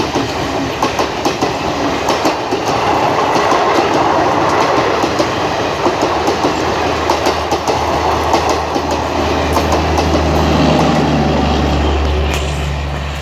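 Coaches of the Garib Rath express train rolling past, wheels clattering over rail joints in a run of quick clicks. A low steady hum comes in near the end.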